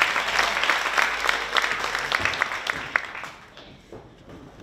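Audience clapping, many sharp claps together, dying away about three seconds in.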